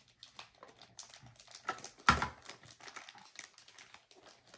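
Plastic toy kitchen pieces being handled: small scattered clicks and rattles with some crinkling, and one louder knock about two seconds in.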